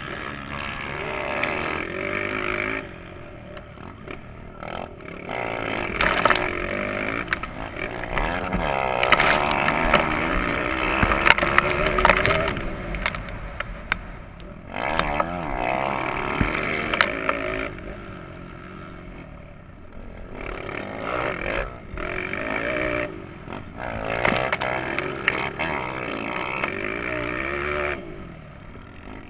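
Motocross bike engine under hard acceleration, its pitch rising and falling as the rider works the throttle and gears, dropping back several times when he shuts off. Sharp knocks and clatter from the bike over the rough track come through now and then.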